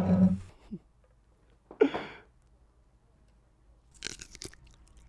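A few short, crisp crackles and crunches very close to a sensitive microphone, the loudest cluster about four seconds in. A voice trails off right at the start.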